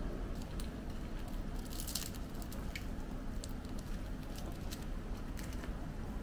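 Light handling noises: scattered soft clicks and taps, with a brief rustle about two seconds in, over a steady low hum.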